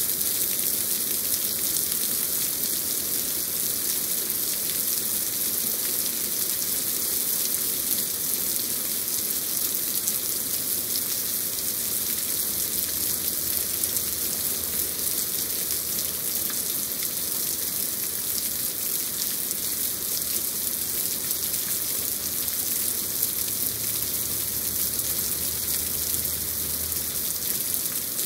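Heavy rain pouring down steadily, a dense, even hiss of drops striking leaves and surfaces.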